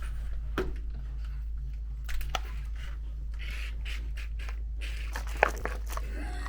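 Scattered small clicks and rustles of objects being handled, over a steady low electrical hum.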